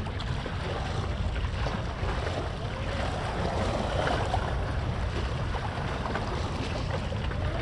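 Wind buffeting the microphone with a low rumble, over small waves washing against the breakwater rocks.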